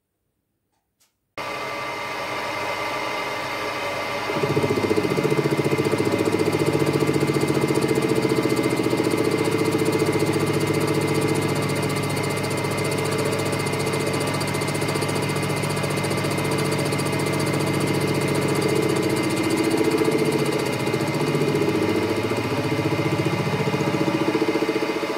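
Small milling machine running, its end mill cutting a brass block for a model steam engine cylinder: a steady motor whine, joined about four seconds in by a louder, lower hum that shifts in pitch near the end.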